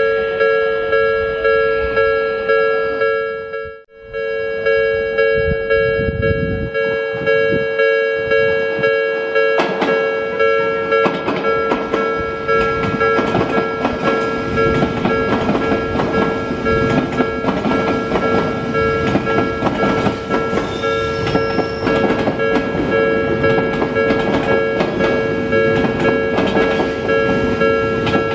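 Japanese railway level-crossing alarm ringing its steady electronic two-tone bell in even pulses, briefly cutting out about four seconds in. From about ten seconds in, an Odakyu 2000-series train's wheels clatter over the rail joints, the clicks coming thicker toward the end.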